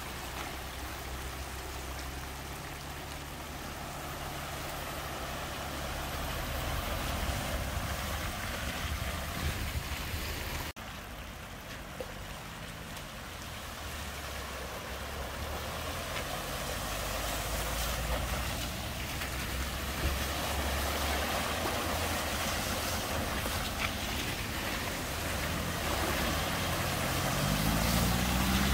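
Cars driving slowly one after another through a flooded ford, engines running low as their wheels push through the water, over the steady rush of water flowing across the road. Near the end an engine revs up as an estate car splashes through.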